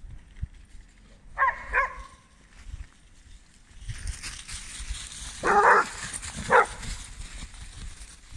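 Dog barking outdoors: a short, high double yelp about a second and a half in, then two louder barks about a second apart later on.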